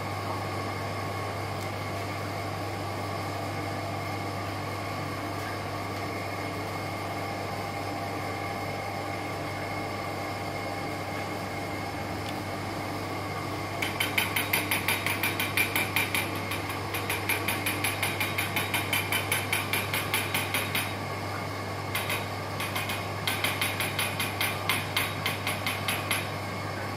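Steady low hum, then from about halfway a rapid run of short airy puffs, about three or four a second, with a brief break near the end, as a rubber hand bulb is squeezed to pump air into the top of a silica gel chromatography column and push the solvent through.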